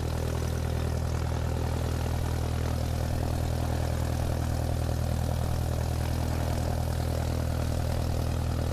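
Propeller-driven piston aircraft engine running steadily at constant speed, with a regular throbbing pulse.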